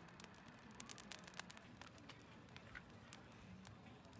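Burning firewood crackling: scattered, irregular sharp pops and ticks, thickest about a second in.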